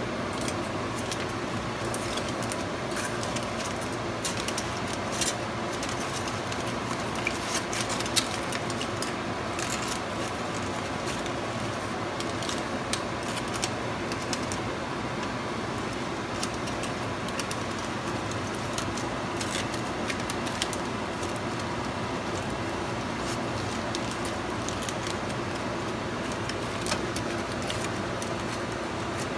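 Aluminium foil being crumpled and folded by hand into a packet, crinkling and crackling in irregular bursts, busiest in the first half. A steady fan hum runs underneath.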